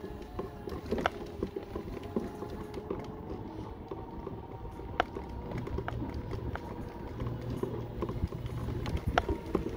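Mobility scooter's electric drive motor whining steadily, with its tyres rumbling over the rough lane surface and a few sharp knocks and rattles from bumps, about a second, five seconds and nine seconds in.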